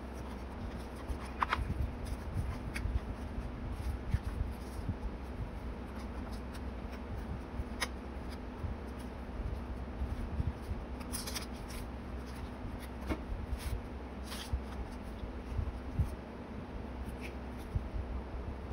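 Hands handling paper in a notebook: pages and paper sliding and rustling, and an instant photo slipped into a film pocket sticker, with soft bumps against the desk and a few brief crisp rustles.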